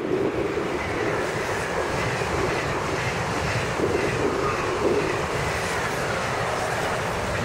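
SNCF TGV Duplex double-deck high-speed train passing close at speed: a loud, steady rush of wheels on rail and rushing air as the carriages go by.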